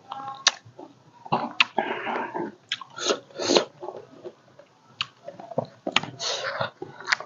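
Close-up mouth sounds of a person chewing juicy orange segments and pomegranate seeds, with irregular sharp clicks and short wet smacks.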